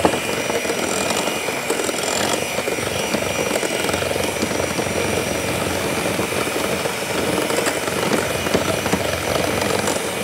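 Electric mixer running steadily, beating butter and sugar together for brownie batter.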